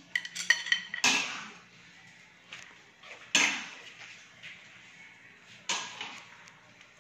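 Metal kitchenware clattering: a few light, ringing clinks, then three sharp clatters about two seconds apart, each trailing off.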